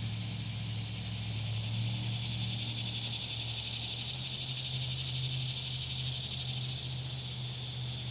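Steady outdoor ambience: a continuous high, shimmering insect chorus over a low steady hum.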